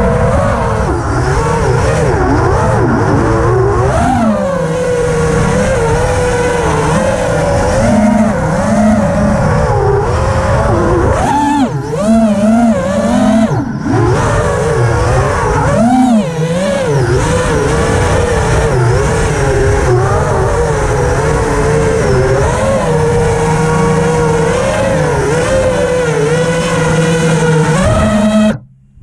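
Brushless motors and 5-inch three-blade propellers of an FPV racing quadcopter (ImpulseRC Reverb, Mr. Steele Silk V2 motors), picked up by its onboard camera. The whine swoops up and down in pitch with the throttle. It cuts off abruptly near the end as the quad comes down on the grass and the motors stop.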